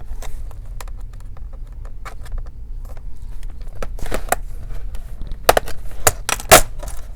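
Bottom cover of a Dell Inspiron 3501 laptop being pried off: scattered light clicks and scrapes, then a run of louder snaps in the second half as the cover's clips let go.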